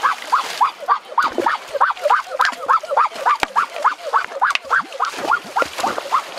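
A rapid, regular series of short rising animal calls, about three a second, with a few sharp splashes of water.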